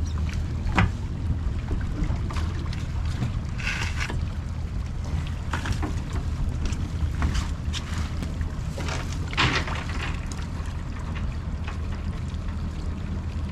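Water splashing and dripping off a cast net as it is hauled aboard and shaken out over a bait bucket and live well, with two louder splashes, one about four seconds in and one near ten seconds. Underneath is the steady low hum of the boat's twin outboard engines idling.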